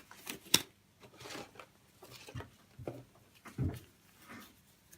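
Gloves being pulled on by hand: light rustling, with two sharp snaps within the first second and softer handling noises and thumps after.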